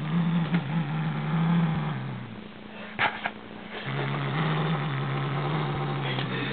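Siamese cat growling low: two long, steady growls, the first about two seconds long and the second starting about a second and a half after it ends, with a brief sharp noise between them.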